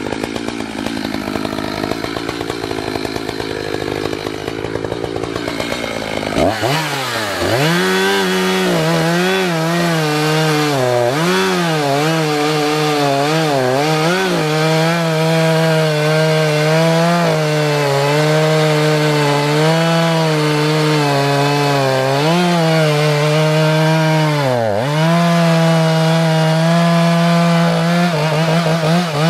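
Echo CS-590 Timber Wolf two-stroke chainsaw, running at low speed for about six seconds, then throttled up to full speed to cut through a log. Its pitch dips repeatedly as the chain bites, with one deep dip near the end, before it drops off as the throttle is released.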